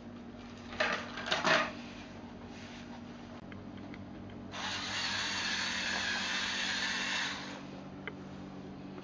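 Small LEGO Technic electric motor and plastic gearing running with a steady hum, with a few plastic clicks about a second in. The motor gets louder into a noisy whir for about three seconds from around halfway.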